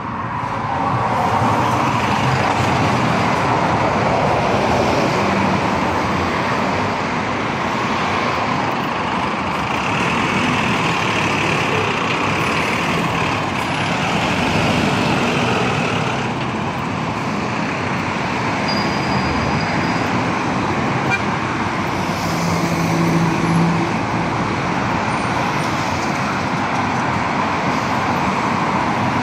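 Steady road traffic on a busy boulevard: a continuous wash of car tyres and engines passing.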